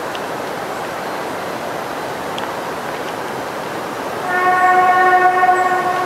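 A train horn sounds about four seconds in: one long steady blast, over a steady rushing noise.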